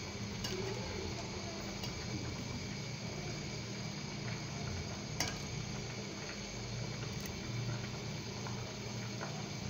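Milk with bay leaves and whole spices simmering in a pot, a steady bubbling over a low steady hum, with one sharp click about five seconds in.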